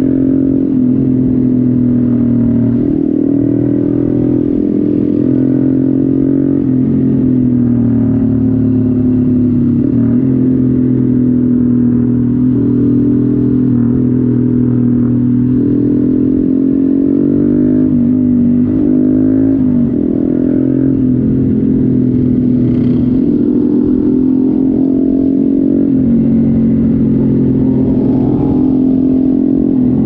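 Honda MSX 125 (Grom) single-cylinder engine running under way at fairly steady revs. Its pitch dips and climbs back several times as the throttle is eased and reopened.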